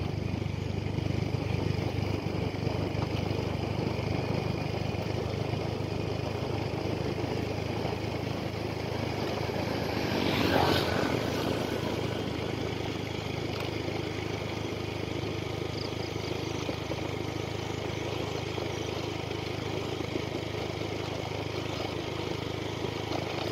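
Motorcycle engine running steadily while riding, with wind rushing over the microphone. There is a brief louder rush of noise about ten seconds in.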